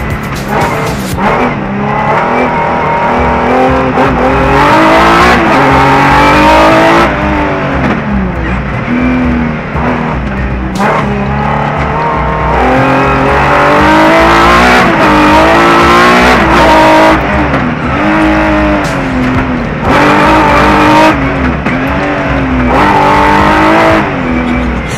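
Rallycross race car's engine heard from inside the cockpit, driven hard round a circuit: it revs up in pitch, drops sharply at each gearchange, and climbs again, many times over.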